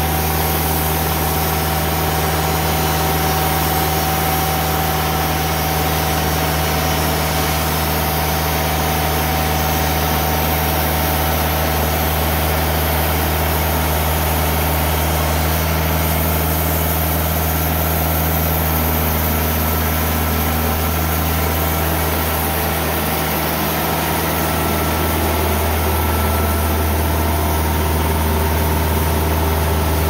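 Kubota V1505 four-cylinder diesel engine of a Timberking 2000 hydraulic bandsaw mill running steadily, with the band blade sawing through a cedar log. The engine note dips slightly about three-quarters of the way through, then comes back.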